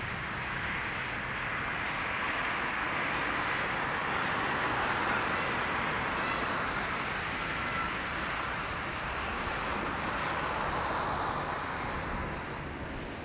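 Airbus A340-300's four CFM56 turbofan engines at takeoff power during the takeoff roll, heard as a steady rushing jet noise. It swells over the first few seconds and falls off slightly near the end as the aircraft lifts.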